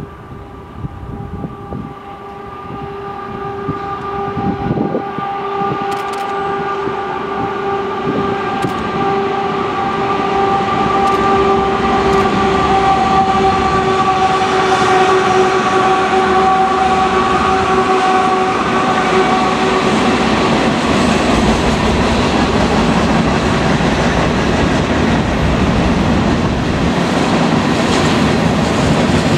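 Union Pacific diesel-hauled freight train approaching and passing. The lead locomotives bring a steady pitched drone that grows louder as they near and fades out about two-thirds of the way through after they pass. The freight cars then roll by with a steady rumble and wheel clatter.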